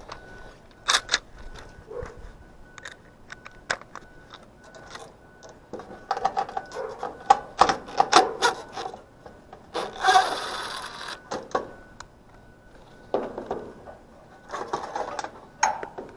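Hand tools and metal parts handled on an air-conditioner condenser unit during a capacitor replacement: scattered clicks, taps, scraping and rubbing, with a brief burst of hiss about ten seconds in.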